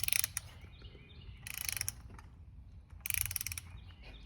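Ratchet wrench clicking in three short strokes about a second and a half apart, tightening bolts while a two-stroke bicycle engine kit is assembled.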